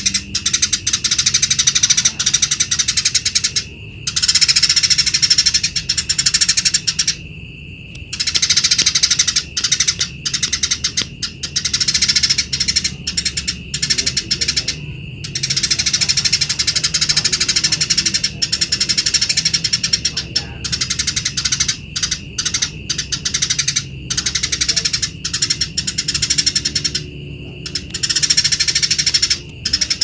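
Eurasian tree sparrow singing: long runs of rapid, high chattering trills lasting several seconds each, broken by brief pauses.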